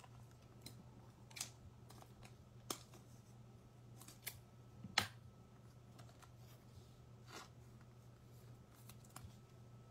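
Trading cards being handled on a table: scattered light clicks and taps, the sharpest about five seconds in, over a faint steady low hum.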